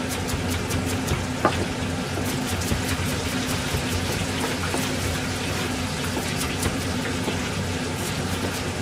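Kitchen knife chopping onion, celery and garlic on a plastic cutting board in quick, irregular taps, with one sharper knock about a second and a half in, over a steady sizzling hiss of oil frying.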